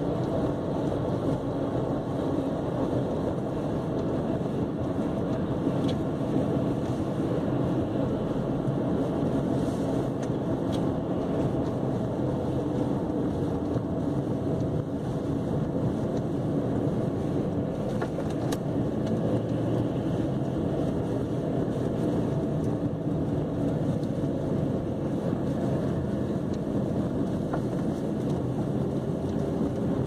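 Steady in-cabin road noise of a Chevrolet Cavalier cruising on a snow-covered highway: an even engine and tyre rumble with no changes.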